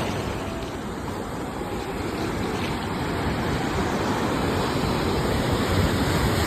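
Ocean waves washing on the shore in a steady rushing noise. It eases just after the start and then slowly swells again as the next wave builds.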